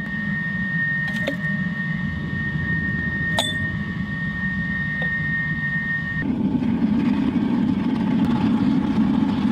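Waste oil burner firing into a furnace: a steady rumbling blast with a thin high whine through it and a couple of light metal clinks. About six seconds in, the whine stops and the burner noise grows louder and deeper.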